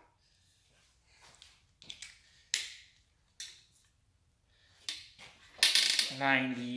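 Ratchet-type torque wrench tightening connecting-rod cap bolts on an engine block, bringing them to 18 before the 90-degree turns: a scattering of short sharp clicks and knocks from the wrench and socket, busier about five and a half seconds in. A man's voice comes in near the end.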